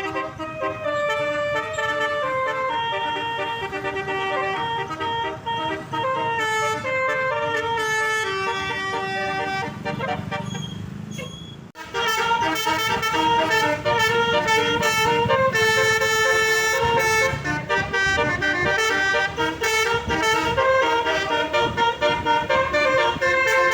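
Bus basuri horn playing a melody, a run of held notes stepping up and down in pitch over a low rumble. About halfway through it breaks off abruptly, and a louder, busier stretch of the tune follows.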